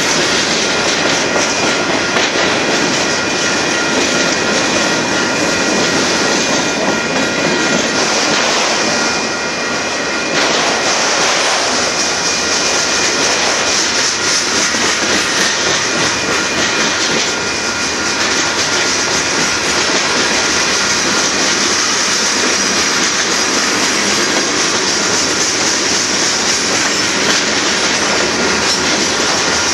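Union Pacific manifest freight train's boxcars and hopper cars rolling past: a loud, steady rumble of steel wheels on rail with clickety-clack from the passing trucks.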